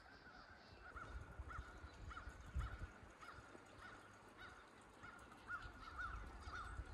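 A bird calling the same short note over and over, about two times a second, faint over a low rumble.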